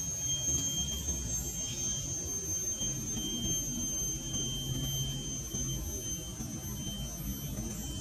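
Forest insects trilling in steady high-pitched tones. One higher tone holds throughout; a lower one starts and stops a few times; all of it sits over a low rumble.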